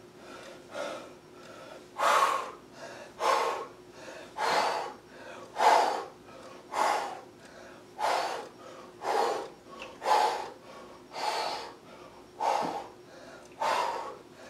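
A man breathing hard through weighted dumbbell crunches, a sharp breath out with each crunch. The breaths are softer and quicker at first; from about two seconds in they turn loud and come about once a second.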